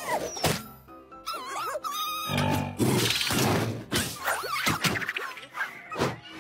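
Cartoon soundtrack: music mixed with sound effects. There are several sharp thuds and hits, and a squeaky, warbling character vocalisation about a second in.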